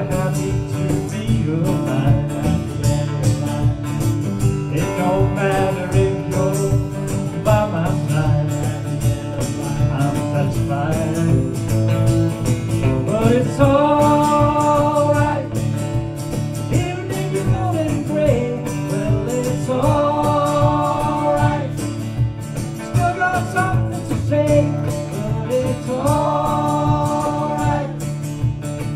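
Live acoustic music: an acoustic guitar strummed, with a man singing into a microphone and holding long notes at intervals.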